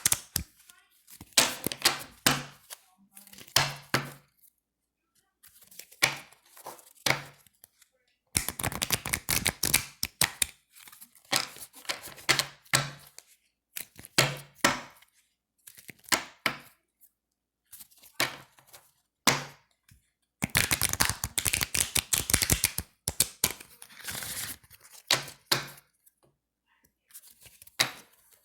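A deck of thin, slick playing cards being riffle-shuffled: repeated runs of fast fluttering clicks as the cards riffle together, several lasting a second or two. Between them come short single knocks with a low thud.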